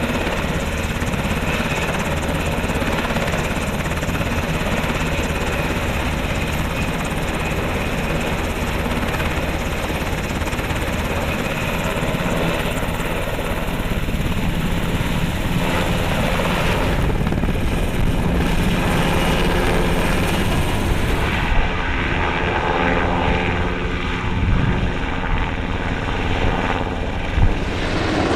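HH-60 Pave Hawk helicopter running close by: steady, loud rotor and turbine noise. About three quarters of the way in the sound changes to a helicopter hovering at a distance, with a couple of brief knocks near the end.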